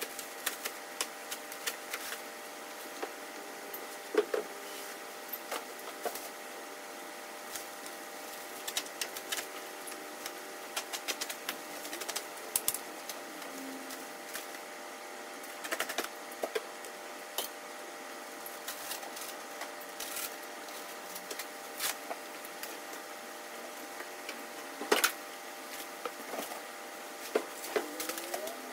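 Plastic stretch wrap crinkling and crackling as foam packing blocks are handled and unwrapped: irregular sharp crackles, with a few short squeaks near the end, over a steady background hum.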